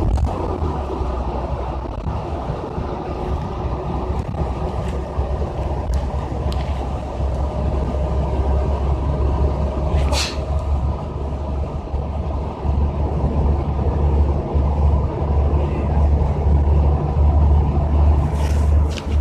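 Bus running and driving, heard from inside the cabin as a steady low engine and road rumble. A single brief sharp noise stands out about halfway through.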